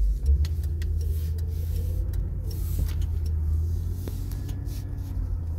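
Ford car heard from inside the cabin while driving: a steady low rumble of engine and road noise that sets in abruptly at the start.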